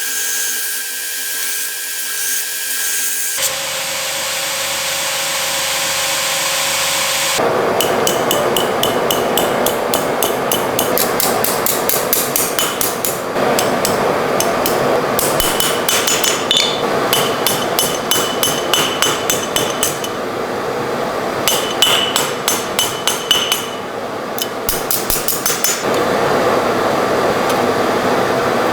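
Hammer forging steel from an old railroad rail on an anvil: runs of quick, even blows, several a second, each with a metallic ring, broken by short pauses. A steady noise fills the first several seconds before the hammering starts.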